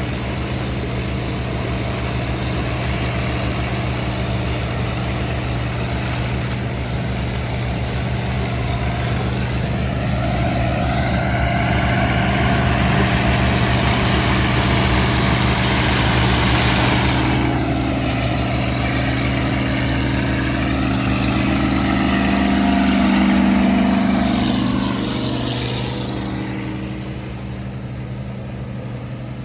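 Farm machinery engine running steadily, with a rising and falling engine note that builds and fades between about ten and twenty-five seconds in, then eases off near the end.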